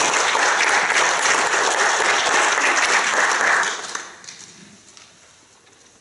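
A congregation applauding, dying away about four seconds in.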